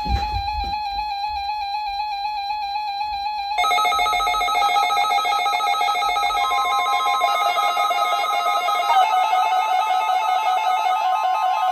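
Several NOAA Weather Radio receivers sounding their alert alarms for a test tornado warning: one radio's alarm tone to start, then about three and a half seconds in more radios join with overlapping pulsing beeps. About six seconds in, the steady 1050 Hz NWR warning alarm tone comes in on top.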